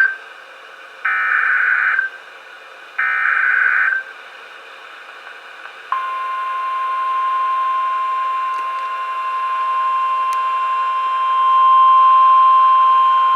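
NOAA Weather Radio emergency alert: two roughly one-second bursts of harsh, warbling SAME digital header data, then about six seconds in the steady 1050 Hz warning alarm tone starts and holds, over faint radio hiss. The sequence announces a tornado warning.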